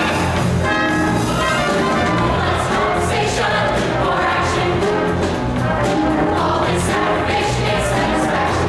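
Show choir singing together over loud, full instrumental accompaniment, a steady up-tempo number with no break.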